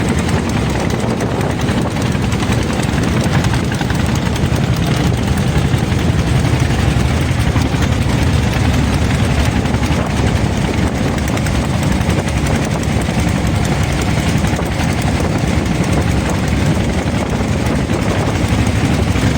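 Boat engine running steadily under way: a loud, even drone with no breaks.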